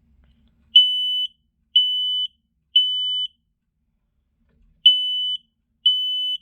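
Smoke alarm's piezo horn sounding on test in the temporal-three evacuation pattern: three loud, high, steady beeps about a second apart, a pause, then the next round of beeps.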